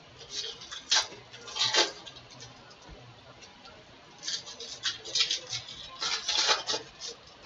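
Foil wrapper of a Bowman baseball card pack crinkling and tearing as it is ripped open: a few sharp crackles in the first two seconds, then a longer run of crinkling from about four seconds in as the cards are pulled out of the foil.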